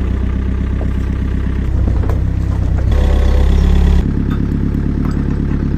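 Takeuchi excavator's diesel engine running, its note changing about three seconds in and again a second later, with a few light metallic clanks.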